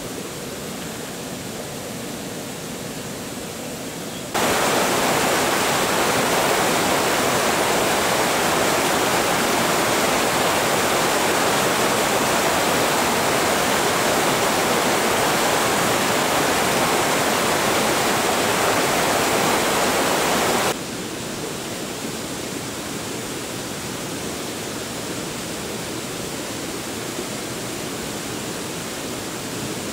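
Fast mountain river rushing over stones: a steady rush of water, jumping abruptly louder about four seconds in and dropping back abruptly about twenty seconds in.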